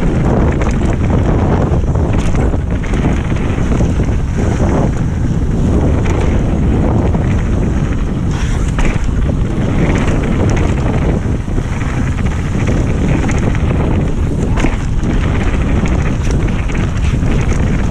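Wind buffeting the microphone during a fast mountain bike descent on a dirt trail, with the tyres rolling over dirt and stones and scattered short knocks and rattles from the bike. The noise is loud and steady.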